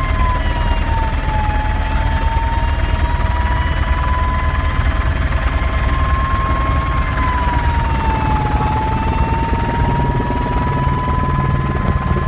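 Eurocopter AS350 B2 A-Star helicopter in flight, heard from inside the cabin: a steady, loud low drone of rotor and turbine, with a whine over it that dips in pitch about a second in and again about eight seconds in, each time climbing back.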